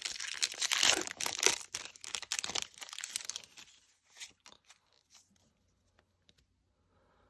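Foil Pokémon card booster pack being torn open, with crinkling of the wrapper for about three seconds, then a few faint rustles and clicks as it is handled.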